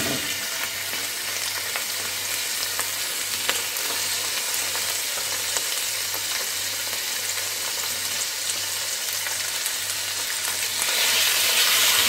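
Raw chicken pieces sizzling in hot oil with garlic in a nonstick pot, stirred with a silicone spatula that gives scattered light scrapes and taps. The sizzle is steady and grows louder about eleven seconds in.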